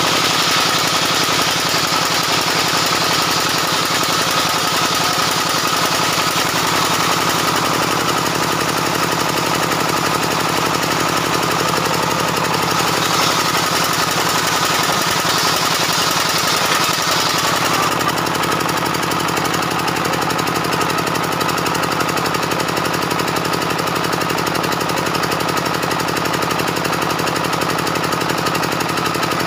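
Homemade table saw with a 24-inch circular blade ripping a long timber beam lengthwise, with a steady cutting hiss over the machine's fast, even running beat. About 18 seconds in the hiss drops away as the cut finishes, and the blade and its drive keep running free.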